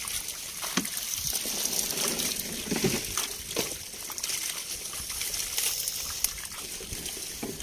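Many small fish flapping and splashing in shallow water trapped in a fishing net, with hands sloshing through the water and wet leaves; a busy scatter of small splashes and pats over a steady trickling hiss.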